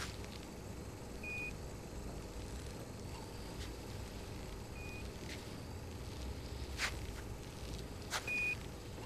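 Apollo 11 air-to-ground radio channel between transmissions: a steady low hiss and rumble, three short high beeps a few seconds apart (the Quindar tones that keyed the transmitter), and a few sharp clicks.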